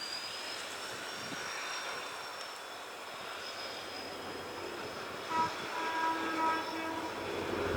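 Triple-tone air horn of an approaching WAP7 electric locomotive, heard at a distance as three short blasts about five to seven seconds in, over a steady faint hiss with a thin high whine. A low rumble of the oncoming train starts to build near the end.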